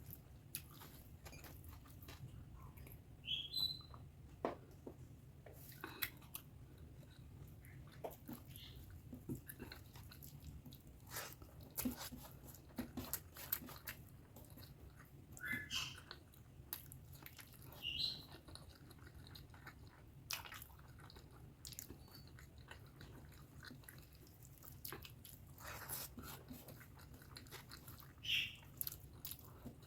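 Close-up chewing and mouth sounds of a person eating pork fat curry with rice: irregular soft clicks and smacks, with a few louder ones scattered through.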